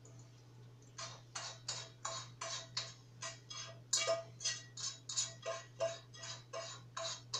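A utensil stirring briskly in a pot, scraping round the sides in an even rhythm of about three strokes a second with a faint ring from the pot. The stirring starts about a second in.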